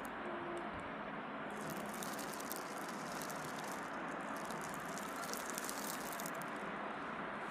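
Steady hiss-like background noise with faint crackling in the upper range, and a short soft low hoot just after the start.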